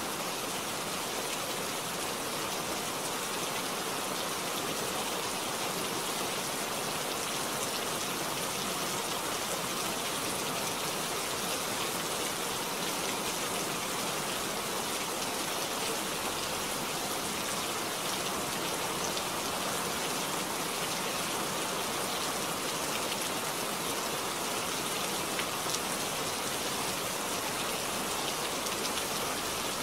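Rain falling steadily, splashing on a wet road.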